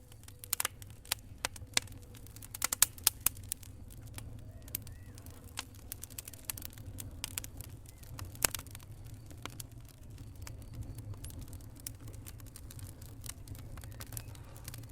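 Wood fire crackling in a fireplace: irregular sharp pops and snaps, a quick cluster in the first few seconds and a loud single pop past the middle, over a steady low rumble of the flames.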